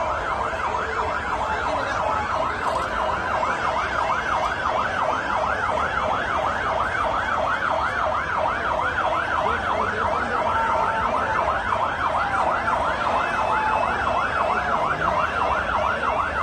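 Fire engine sirens sounding a fast yelp, sweeping up and down in pitch about three times a second without a break. They are sounded as a ceremonial salute, not for an emergency.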